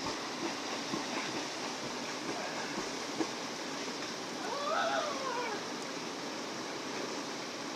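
Steady rushing of a fast-flowing river. About five seconds in, a short call rises and falls once above it.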